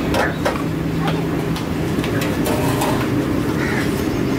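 Street noise: a steady low engine hum, its pitch dropping slightly about two seconds in, with scattered sharp clicks and clinks.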